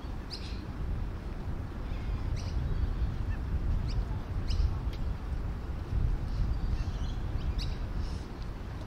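Outdoor waterside ambience: a steady low rumble with scattered short, high bird calls and chirps every second or two.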